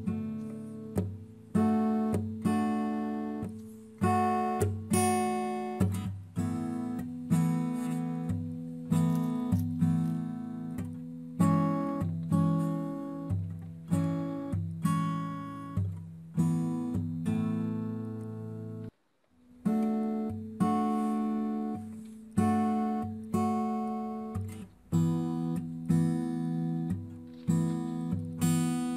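Acoustic guitar background music: chords and notes struck and left to fade, one after another, with a brief pause about two-thirds of the way through.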